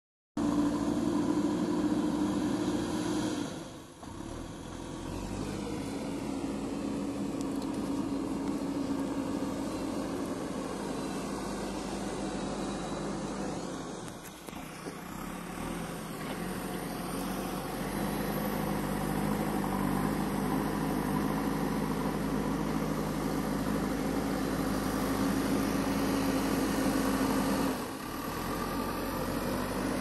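JCB 3DX backhoe loader's diesel engine running steadily, its note shifting in pitch a few times, with brief drops in level about four seconds in, midway and near the end.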